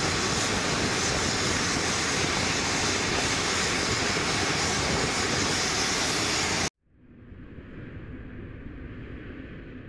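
Jet engines of a Boeing C-17 Globemaster III running, a loud steady noise with a strong high hiss, cut off abruptly about seven seconds in. A softer intro sound effect then swells and fades out near the end.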